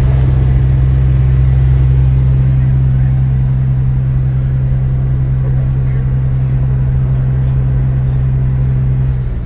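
Car audio subwoofers (Kicker Solo X 15s) playing a loud, steady bass tone held at one low pitch, cutting off just before the end.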